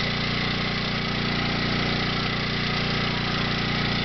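Inflatable bounce house's electric air blower running, a steady hum.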